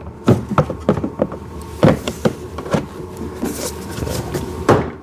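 Hard plastic parts of a kids' ride-on car knocking and clicking as the windscreen piece is handled and pressed into place: a run of sharp knocks, loudest about two seconds in and near the end, with a short rustle a little past three seconds in.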